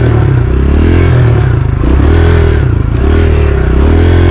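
Dirt bike engine running on a trail ride, its pitch rising and falling several times as the throttle opens and closes.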